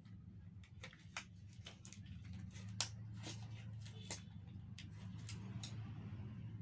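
Disposable examination gloves being pulled onto the hands, the thin rubber giving a scatter of small snaps and crinkles, the sharpest about three seconds in, over a steady low hum.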